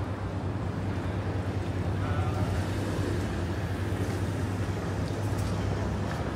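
Steady low engine hum under a noisy wash, with no clear starts or stops.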